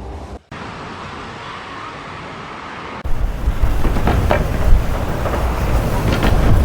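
Wind noise, a steady rushing that stops for a moment near the start, then switches at about three seconds to louder, rumbling wind buffeting the microphone.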